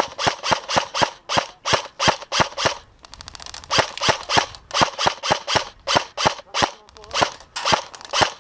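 Airsoft gun firing a rapid, even string of shots, about seven a second, as suppressing fire. About three seconds in, a short faster rattle breaks in before the steady shots resume.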